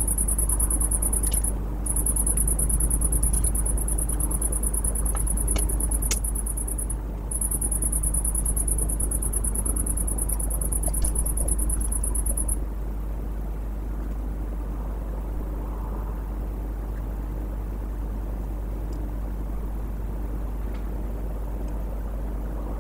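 A night insect trilling in a high, continuous buzz with a few brief breaks, over a steady low electrical hum from the webcam's audio; the trill stops a little past halfway, leaving the hum and a faint hiss.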